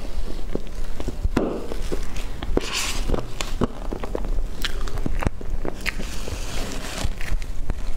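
Close-miked eating sounds of a person eating soft cream cake with a spoon: wet mouth sounds and chewing, with irregular sharp clicks scattered through.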